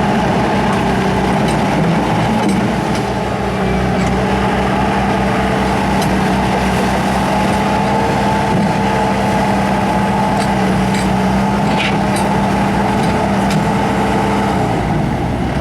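2006 Bobcat T300 track skid steer's diesel engine running steadily, its pitch dropping shortly before the end as the revs come down.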